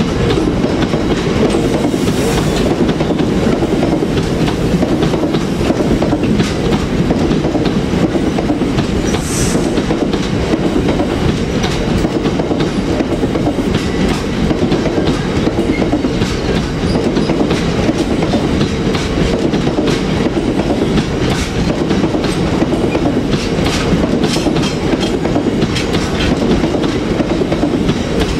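Freight train of loaded-style JNA box wagons rolling steadily past with a continuous rumble and the clickety-clack of wheels over the rail joints. A couple of brief high squeals come in the first ten seconds.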